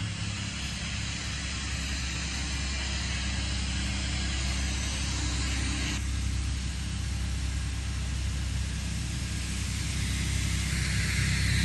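Lawn mower engine running steadily, a constant low hum under a broad hiss that grows louder near the end.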